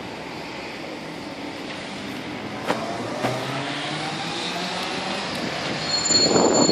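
Inline-skate wheels rolling over stone paving, a steady rolling noise that grows louder and rougher from about six seconds in. A vehicle engine passes by in the middle, and there is a sharp click a little under three seconds in.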